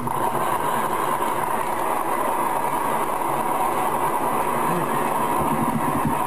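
Audience applauding: a steady wash of clapping that starts suddenly and keeps going.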